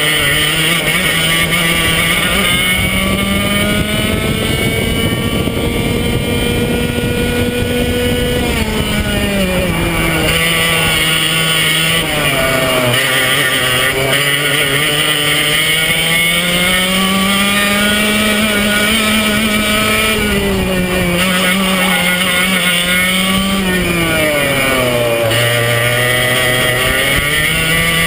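Racing kart's Swedetech HPV2 engine running under racing load, heard from on board. Its pitch holds high, falls about eight seconds in as the driver lifts off for a corner, climbs steadily to a peak around twenty seconds, then drops to its lowest for another corner and rises again near the end.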